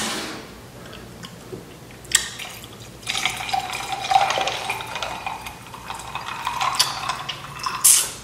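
Pink drink poured from a plastic pitcher into a glass jar: a steady pour starting about three seconds in, its pitch rising slowly as the jar fills, with a sharp louder noise just before it ends.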